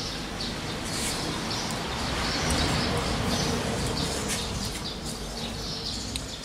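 Small birds chirping repeatedly over a steady background hiss that swells and fades in the middle.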